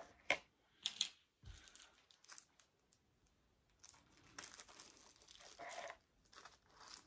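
A few sharp clicks in the first second as a plastic tray of round diamond-painting drills is set down. Later, faint crinkling of small plastic drill packets being handled.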